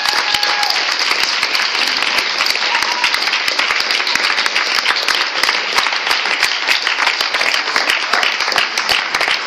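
A group of students applauding: dense, steady clapping of many hands that holds at an even level throughout.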